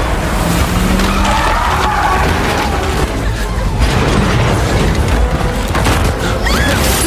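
Film sound design of an earthquake tearing apart a concrete dam: a loud, dense low rumble with grinding and repeated crashing impacts, and a musical score mixed underneath.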